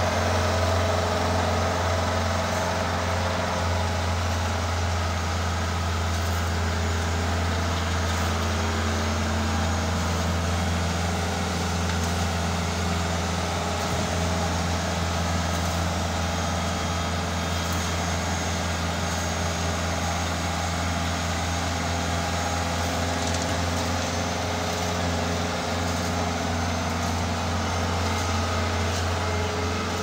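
Bobcat S450 skid steer loader's diesel engine running steadily as the machine scoops soil and lifts its bucket to load a dump truck.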